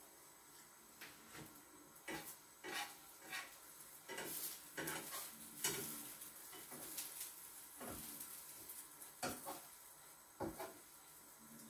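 Spatula scraping and tapping against a frying pan as a pancake cooks, irregular light clicks and scrapes over a faint sizzle.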